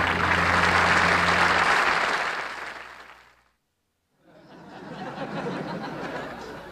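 Studio audience applauding. The applause fades out to a moment of dead silence about three and a half seconds in, then comes back quieter.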